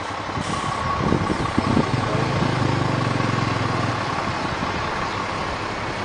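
Coach bus diesel engine running as the bus crawls through a tight hairpin bend, its low note swelling in the middle as it pulls around the turn. A few knocks come about a second in, and a thin steady whine runs above the engine until near the end.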